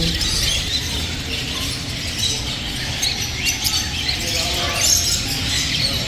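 Many small caged parrots, lovebirds and budgerigars, chattering together: a constant din of high chirps and squawks with no pauses.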